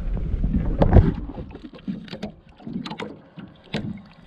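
A rainbow trout being handled in a wooden landing net over the side of a boat. Wind rumbles on the microphone at first, with a loud knock about a second in, then scattered small clicks and water splashes and drips.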